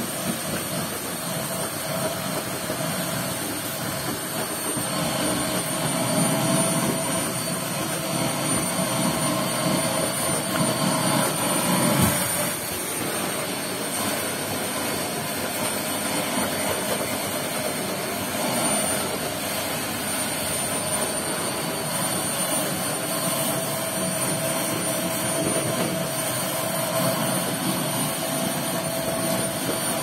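Canister vacuum cleaner running steadily, its hose nozzle being drawn through a dog's thick coat: a constant motor whine with a high, thin tone over the rush of suction, with one brief click about twelve seconds in.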